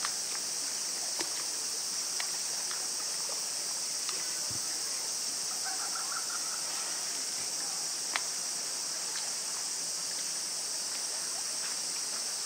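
Steady high-pitched hiss of outdoor ambience around the sea lion pool, with a few faint clicks and a sharp tick about eight seconds in. Around six seconds in there is a short, faint call-like sound.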